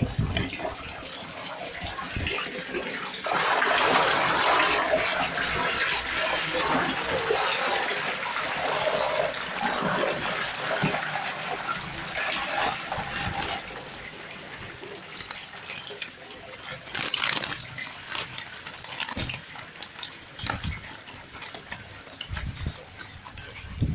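Water splashing and churning as fish thrash in a landing net drawn through shallow water. Later it turns quieter, with scattered wet slaps and taps of netted fish flapping against each other and the mesh.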